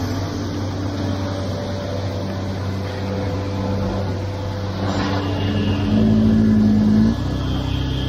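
Engine of a concrete truck running steadily, with a low hum. About six seconds in it grows louder with a higher tone, then drops back suddenly a second later.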